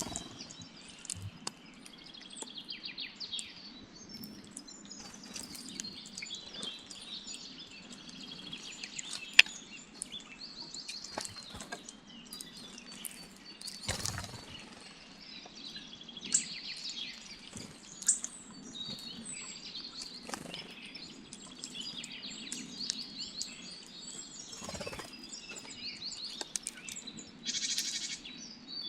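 Several small wild birds chirping and calling at a feeding spot, with sharp taps and clicks scattered through, the loudest about nine seconds in. A short harsh rasping burst comes near the end.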